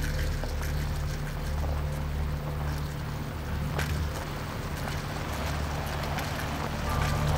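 Dodge Charger police car driving up a gravel driveway: engine running low, with its tyres on the gravel.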